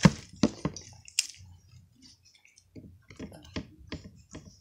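Homemade slime being squeezed and pressed in the hands, giving short wet clicks and pops: a few in the first second, then a quick run of them near the end.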